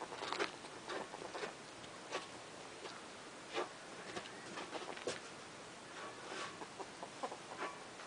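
Two ferrets play-fighting: irregular scuffling with short, quick clucking sounds, the excited dooking that ferrets make in play.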